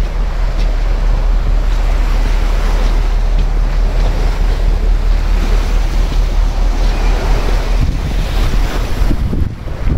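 Wind buffeting the microphone over a steady rush of sea water, loud and gusty; it eases briefly near the end.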